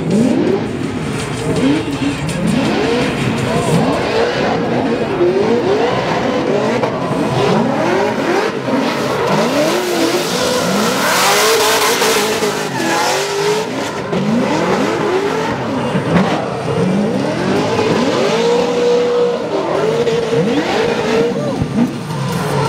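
Drift cars' engines revving hard in quick rising sweeps, one after another, as the cars slide sideways, with tyre squeal and a louder hiss of spinning tyres about ten to thirteen seconds in.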